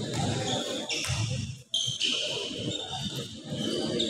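Volleyball being struck and bouncing on a hard indoor court, with a background of player and spectator voices and short high-pitched squeaks. The sound cuts out for a moment near the middle.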